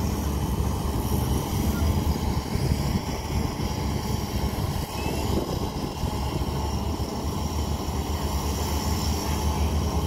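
Diesel engines of a Caterpillar 320B tracked excavator and a Shantui DH17 bulldozer running steadily together during a recovery, a deep continuous engine drone.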